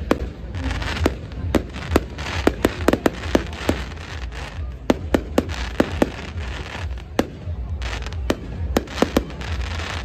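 Fireworks display: aerial shells bursting in a rapid, irregular string of sharp bangs, about two a second, bunched in quick runs.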